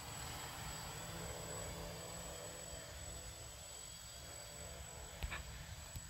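Homemade quadcopter drone's electric motors and propellers humming steadily, growing fainter, over a low rumble. A short click about five seconds in.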